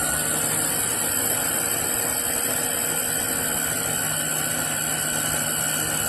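Daedalus 500 W ER16 brushed CNC spindle motor running steadily at constant speed, a high-pitched motor whine with a mid-pitched tone over it.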